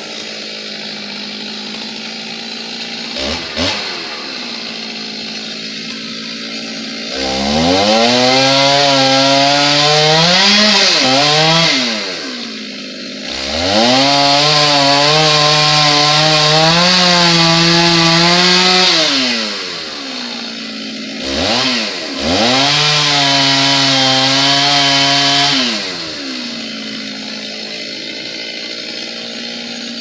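Stihl two-stroke chainsaw cutting into an oak trunk: idling, blipped briefly, then run at full throttle three times for several seconds each, its pitch sagging and wavering as the chain bites the wood, and dropping back to idle between cuts and near the end.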